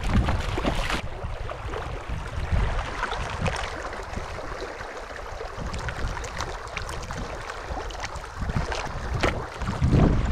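Shallow mountain stream running and splashing over rocks close to the microphone, with wind rumbling on the microphone in gusts.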